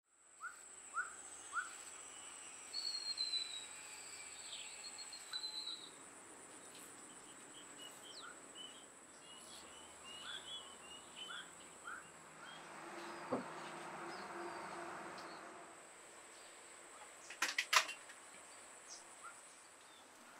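Rural outdoor ambience: small birds chirping and trilling in short scattered calls over a steady high-pitched insect drone. A soft rushing swell rises and fades midway, and a few sharp clicks sound near the end.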